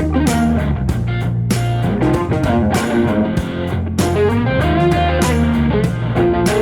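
Upbeat intro music: electric guitar over bass and drums with a steady beat.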